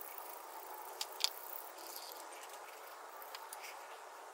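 Quiet handling of a metal PCV breather box: two light clicks about a second in and a few faint ticks, over a steady low hiss.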